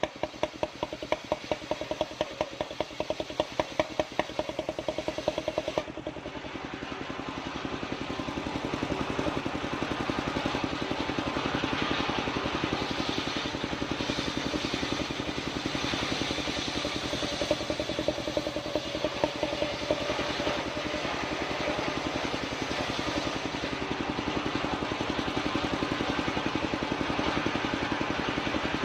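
Engine-driven circular saw of a portable sawmill, its engine running with a fast, even clatter. From about eight seconds in, a louder, steady rasping hiss joins it as the blade rips through a sengon log.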